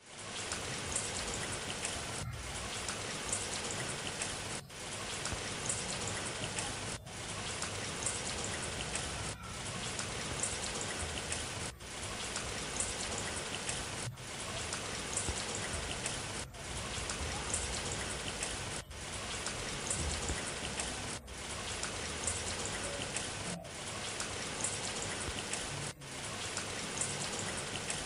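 Steady rain sound effect, a short loop that restarts with a brief dip in level about every two and a half seconds.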